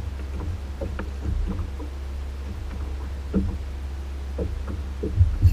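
Steady low wind rumble on the microphone, with small irregular slaps of water against the hull of a Hobie Outback plastic kayak.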